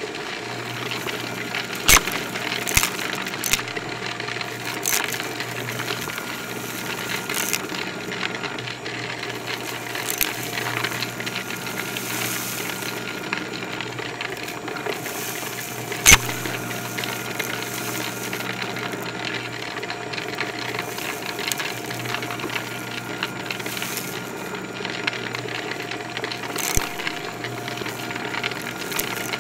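Shark Navigator upright vacuum running steadily over carpet, sucking up crunchy debris that clicks and rattles through the machine. A few sharper, louder clicks stand out, one about 2 seconds in and the loudest about halfway through.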